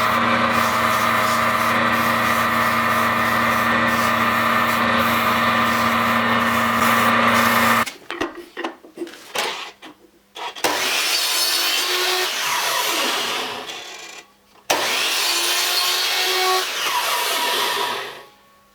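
Woodworking power tools working wood: a machine runs steadily for about eight seconds, then two separate bursts of cutting or grinding follow, each lasting a few seconds.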